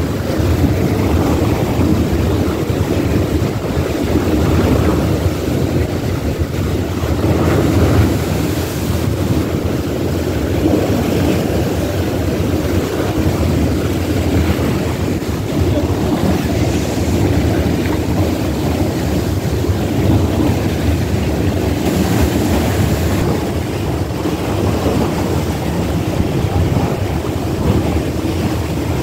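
Steady rumble of a sightseeing boat under way: engine drone and water rushing past the hull, with wind buffeting the microphone. There is a brief hissy gust about three quarters of the way through.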